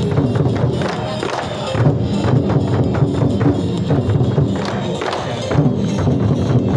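Music with drums and jangling, cymbal-like percussion, a dense driving beat.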